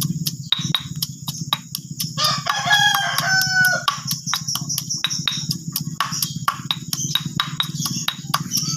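A rooster crows once, starting about two seconds in and lasting under two seconds, over rapid, even knocking of a pestle pounding shallots and turmeric in a mortar, about three to four strokes a second. A steady low hum runs underneath.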